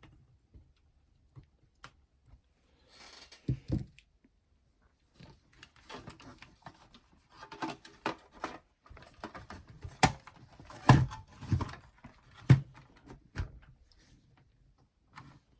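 Scattered clicks, knocks and rattles as the plastic case of a clock radio/cassette player and small tools are handled during disassembly, with a few sharper knocks in the second half.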